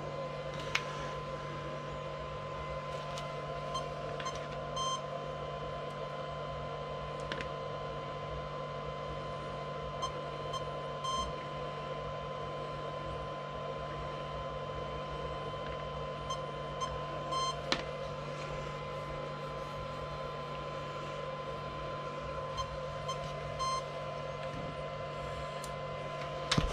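A steady high-pitched electronic tone holds without a break over a low steady hum, with a few faint clicks and taps now and then.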